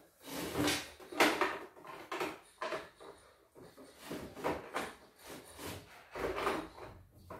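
A plastic home embroidery machine's embroidery unit being pushed and slid about on a wooden shelf: a string of short scrapes, rubs and light knocks, the loudest about a second in.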